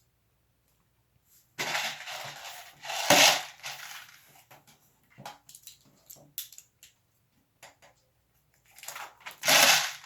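Hands rummaging through loose plastic Lego Technic pieces: two stretches of dense rattling clatter, one starting about one and a half seconds in and one near the end, with scattered small clicks between.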